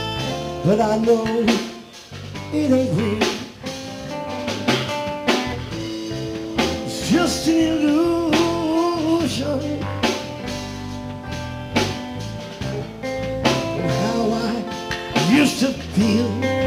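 Live blues-rock band playing an instrumental passage: electric guitar, bass guitar and drum kit, with a lead line that bends and wavers in pitch over steady held notes and regular drum hits.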